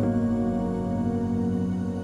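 Soft ambient background music with sustained, held chords.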